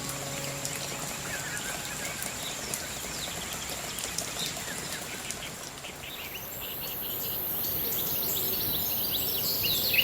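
Forest ambience on a rainforest trail: birds chirping over a steady hiss. About halfway through, a high hiss comes in and grows louder.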